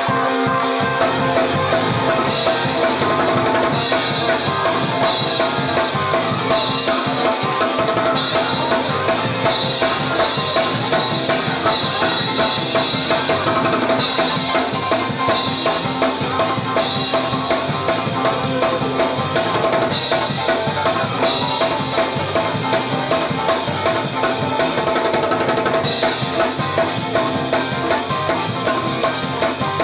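Gospel praise music in church, a drum kit keeping a steady beat under held keyboard-like notes.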